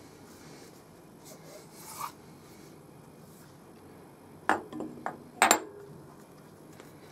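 Metal cylinder block being set down into a steel grinding vise: a light scrape about two seconds in, then a quick cluster of sharp metal knocks and clicks about four and a half seconds in as it seats against the vise, the last one the loudest.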